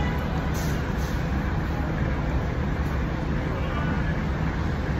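Sightseeing bus running with a steady low engine drone, mixed with street traffic, heard from its open top deck.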